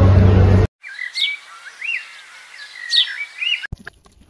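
A bird singing: a short phrase of chirps and a quick rising whistle, given twice about two seconds apart over a quiet background that starts and stops abruptly.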